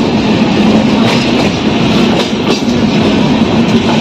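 Passenger express train running at speed through a station, heard from aboard a coach: a steady, loud rumble of wheels on the track with a low hum, and a few sharp clicks of wheels passing over rail joints.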